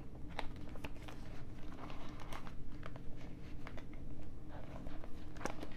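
Light rustling and crinkling of a cash budget binder's vinyl zipper pouches and paper bills as they are handled and a page is turned, with scattered small clicks.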